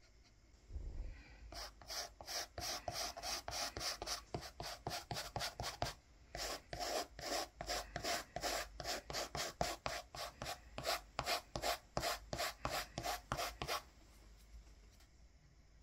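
Toothbrush bristles rasping in quick repeated strokes, about three or four a second, with a short break about six seconds in: a toothbrush working acrylic paint onto a canvas.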